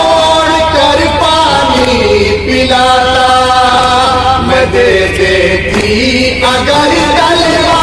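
Two men chanting a Shia nauha (Urdu lament) together into a microphone, in long held, wavering melodic lines without instruments. A steady low hum runs under the voices.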